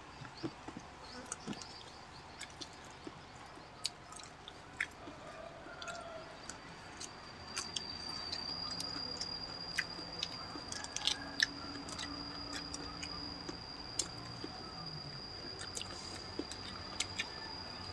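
Two people chewing grilled chicken and rice eaten by hand, with soft wet mouth sounds and many small clicks and smacks. A steady, thin high tone sets in about a third of the way in.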